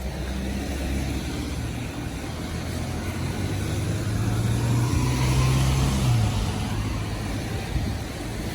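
A road vehicle passing: its engine hum and tyre noise swell to a peak a little past halfway, then fade over a steady low rumble.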